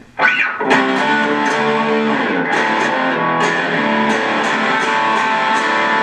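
Electric guitar strummed in overdriven chords through a Boss Katana Mini amplifier on its crunch channel, with the gain at about 2 o'clock. The playing starts about a quarter second in and runs on as steady rhythmic chords.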